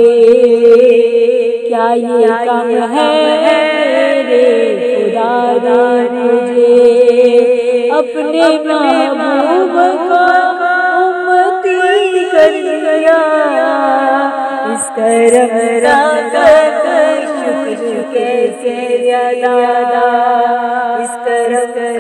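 A woman's voice singing an Urdu naat unaccompanied, its melody gliding and ornamented, with several voice parts layered at once.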